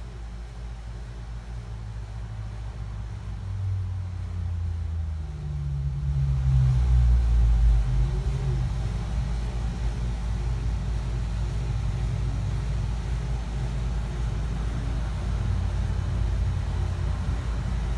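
Low, steady motor rumble with a hum that shifts in pitch, swelling loudest about six to eight seconds in, then holding steady.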